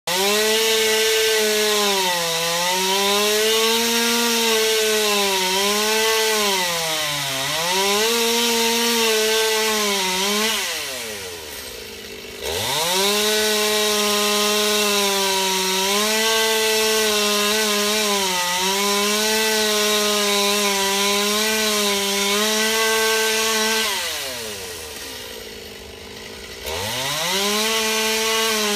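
Two-stroke chainsaw cutting into Norway maple wood at full throttle, its pitch sagging as the chain bites under load. Twice it drops to idle for about two seconds and then revs back up into the cut.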